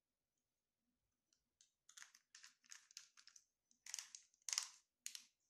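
Small cosmetic bottles being handled on the table: a string of short rustling clicks, about a dozen over four seconds, loudest near the end.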